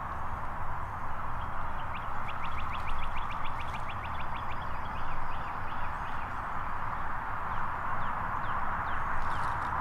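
A small songbird's rapid trill, about fifteen quick, evenly spaced notes starting about two seconds in, followed later by scattered single chirps, over a steady background hiss.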